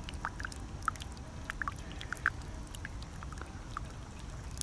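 Coffee dripping through a paper-filter dripper during a slow pour-over: scattered small, irregular drips and plinks over a low steady rumble.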